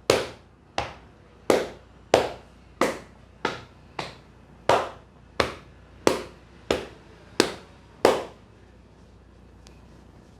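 Hands striking the head during a head massage, about thirteen sharp, popping slaps in an even rhythm of roughly one and a half a second, stopping near the end.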